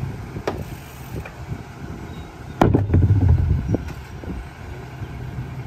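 McNeilus rear-loader garbage truck running steadily while a plastic trash cart is emptied by hand into its hopper, with light knocks of the cart. About two and a half seconds in comes a loud bang as the cart strikes the hopper, followed by a low rumble for about a second.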